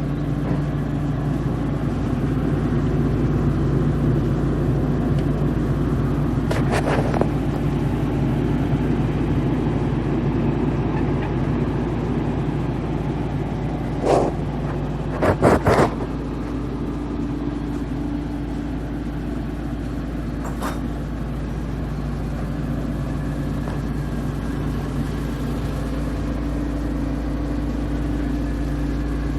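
Diesel engine of an Atlas 190 LC tracked excavator running steadily, a little louder in the first third, with a few short sharp knocks about halfway through.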